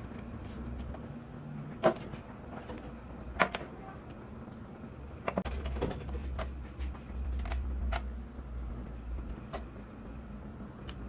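Scattered light clicks and taps from small plastic parts, epoxy tubes and a mixing stick handled on a tabletop, over a steady low hum.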